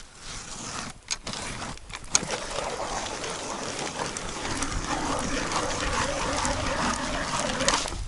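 Ice auger drilling a hole, its blades grinding through a snow crust and a waterlogged slush layer into the ice. A few crunches come first, then the steady grinding starts about two seconds in and stops abruptly near the end.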